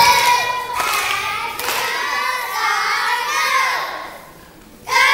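A song with a high singing voice. The singing fades away about four seconds in and starts again just before the end.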